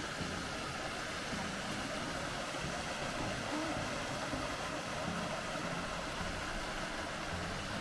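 Steady rushing of a creek's flowing water, an even hiss and rumble with no breaks.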